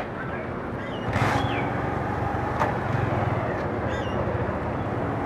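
A motor vehicle running amid steady outdoor noise, louder for a couple of seconds from about a second in. A brief burst of noise comes about a second in and a sharp click a little later, with a few faint bird chirps.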